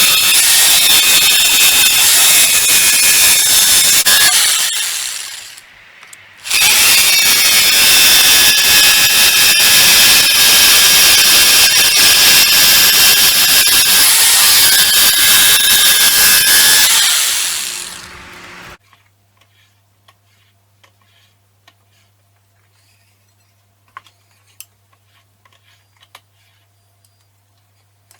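Angle grinder working steel with a high-pitched whine, in two runs. Each run ends with the grinder winding down after the trigger is released, the second about 18 seconds in. After that only faint clicks and a low hum remain.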